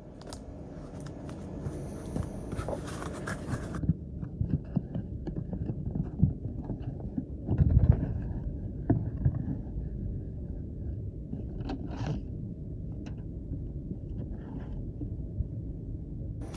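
Muffled low rumbling and rubbing handling noise from a phone microphone inside its case, with scattered scrapes and clicks and a louder thump about eight seconds in.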